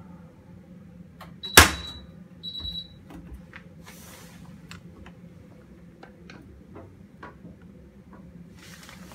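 Miele front-loading washing machine: a steady low hum, then a loud sharp click with a high ring about a second and a half in, followed by a short high electronic beep. Lighter clicks and a couple of brief rustles follow as the machine's door is handled.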